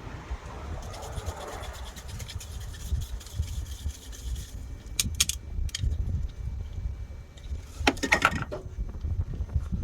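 Rubbing and scraping handling noises, with a few sharp clicks around the middle and a cluster of clicks near the end, over an irregular low rumble.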